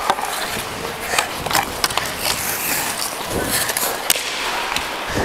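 Ice hockey skates scraping and carving on rink ice as a player skates, with scattered sharp clicks and knocks.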